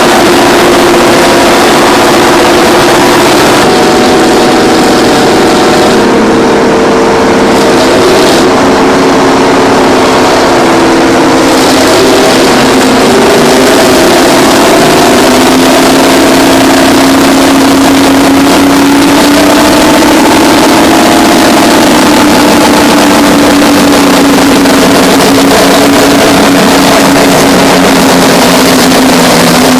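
Heavy earthmoving diesels running hard under load: the Terex 82-80 bulldozer's twin Detroit Diesel 6-71N two-stroke engines pushing scrapers. Their pitch wavers and then drops and holds lower about halfway through.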